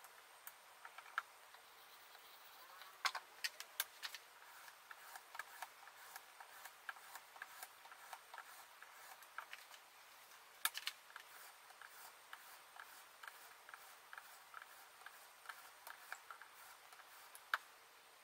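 Faint, scattered clicks and taps of hands handling an Edge Pro Apex knife sharpener, its stone arm and loose sharpening stones, with a few sharper clicks, the loudest about eleven seconds in.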